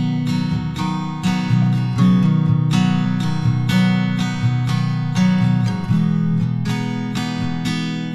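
Background music: acoustic guitar playing plucked and strummed chords at an even pace.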